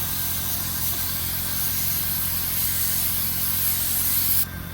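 Automotive paint spray gun spraying, a steady hiss of air and paint that cuts off suddenly near the end as the trigger is released, over a steady low hum.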